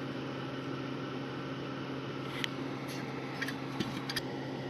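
1989 AC-742 ceiling fan running with a steady low electrical hum from its motor. A few faint clicks come in about halfway through and near the end.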